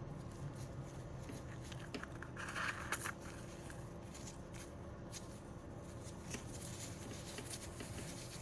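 Small plastic product jars being handled: scattered light clicks and taps, with a brief rustle about two and a half seconds in.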